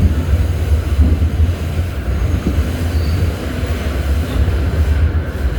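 R68 subway car running along the track, heard from on board: a loud, steady low rumble with track noise.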